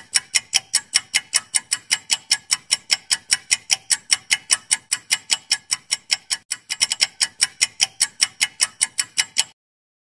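Countdown-timer sound effect of a clock ticking fast, about five crisp ticks a second, with a brief stumble in the rhythm around six and a half seconds in; it stops abruptly near the end.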